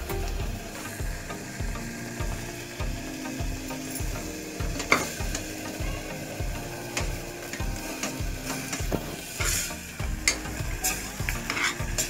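Masala sizzling in the oil of a pressure cooker as raw chicken pieces are added and stirred, with sharp clinks and scrapes of a steel spoon against the metal pot, the loudest about five seconds in.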